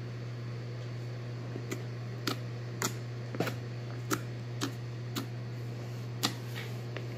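A series of light, sharp clicks or taps, about two a second, starting a second or two in, over a steady low hum.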